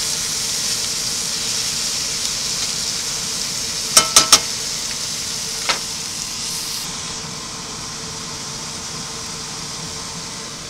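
Garlic, mushrooms, peppers and onion sizzling in bacon grease in a cast iron skillet: a steady high hiss that slowly grows quieter. About four seconds in come three quick ringing metallic clinks, with one more a little later.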